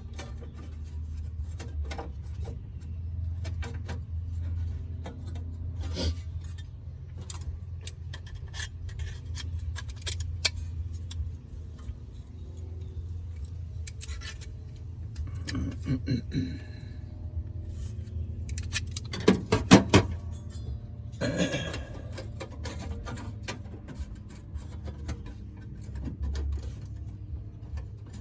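Hand tools and sheet-metal parts clinking and rattling, with scattered sharp metallic clicks and a few denser clatters in the middle, over a steady low hum.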